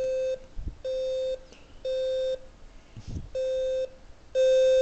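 Fire alarm controller's speaker sounding a 520 Hz alarm tone in the temporal-three evacuation pattern: three half-second beeps about a second apart, a pause, then the next set of beeps starting. The signal is the system in alarm state after a zone is triggered.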